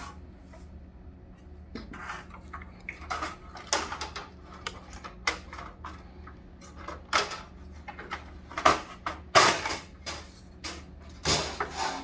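Refrigerator freezer fan-and-damper cover panel being handled, turned over and set down on a table: scattered clicks, knocks and rattles of plastic and panel, the loudest about nine to ten seconds in, over a steady low hum.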